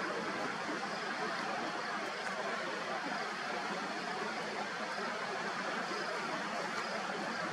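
Steady rushing wash of ocean surf, an even noise with no rise or fall.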